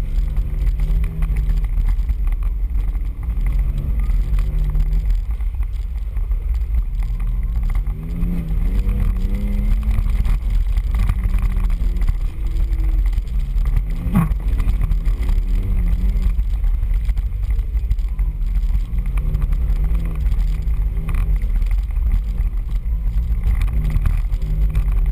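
Off-road 4x4's engine running and revving up and down as it works along a rough trail, over a heavy steady low rumble. A single sharp knock a little past halfway.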